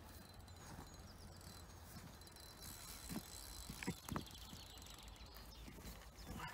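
Quiet outdoor ambience with faint distant birdsong and a thin steady high tone, broken by a few soft knocks about halfway through.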